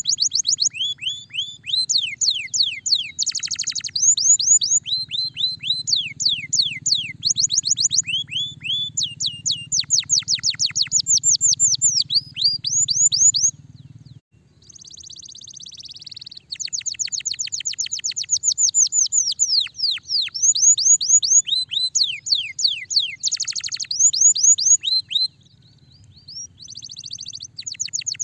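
Domestic canary singing, with fast trills of rapid downward-sweeping notes strung together phrase after phrase. The song breaks off about halfway through, then starts again.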